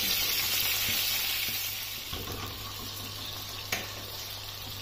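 Seekh kababs on metal skewers sizzling in hot oil on a flat iron tawa. The sizzle drops to a quieter hiss about two seconds in, and there is one sharp click near the end.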